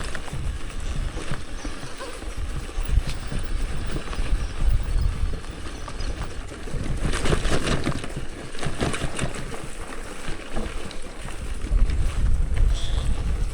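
Wind rumbling and buffeting on the microphone while riding a loaded touring bicycle over a dirt trail, with a stretch of crackling and rattling about halfway through.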